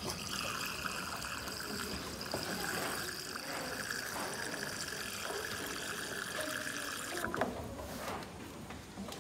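Water running through the pressed paddle valve of an automatic livestock drinking bowl into the bowl, flowing steadily, then cutting off about seven seconds in.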